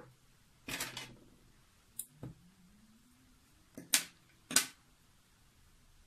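Hands handling yarn and a plastic-handled crochet hook on a tabletop: a short rustle, a light click and knock, then two sharp clicks about half a second apart.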